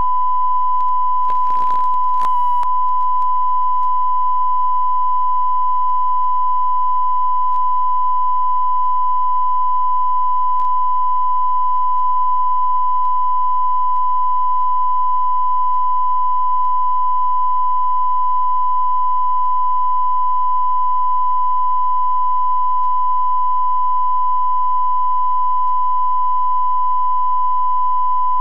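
Steady line-up reference tone recorded with colour bars at the head of a videotape: one unwavering high beep held throughout. A short burst of hiss comes about two seconds in.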